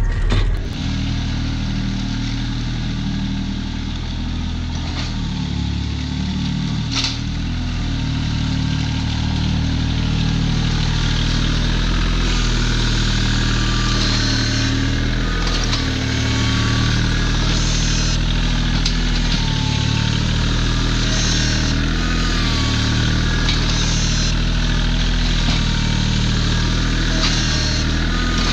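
Kioti compact tractor's diesel engine running steadily under load as it drives. Its rear-mounted scraper blade drags slurry and muck along the yard floor, with a couple of sharp knocks, one at the start and one about seven seconds in.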